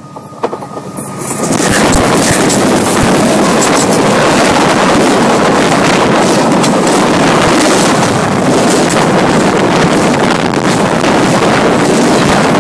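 A train rolling directly over a microphone set between the rails: the noise builds quickly over about the first two seconds as the locomotive arrives, then holds as a loud, steady rush from the wheels and undercarriage, with sharp clacks here and there.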